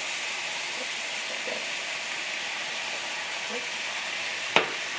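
Steady sizzling of chicken, egg and freshly added cooked rice frying in a hot oiled skillet, with a single sharp knock about four and a half seconds in.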